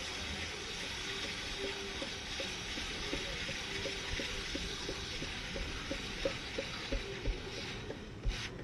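Aerosol can of Motul chain lube spraying onto a motorcycle drive chain in a steady hiss, with faint regular ticking beneath. The spray breaks off briefly near the end.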